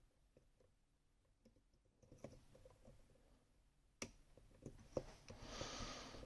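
Faint small clicks and taps of metal tools working a Rosengrens lock, with a sharper click about four seconds in, another a second later, and a short scraping sound near the end.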